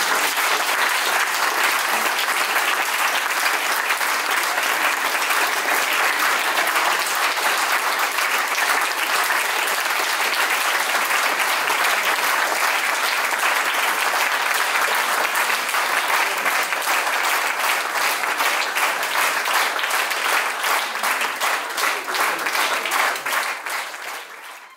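An audience of a few dozen people clapping steadily, fading out near the end.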